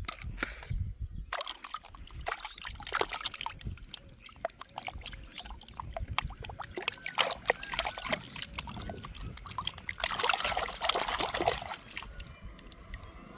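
Water trickling and splashing, with many small drips and bubbling plops, busiest about ten seconds in.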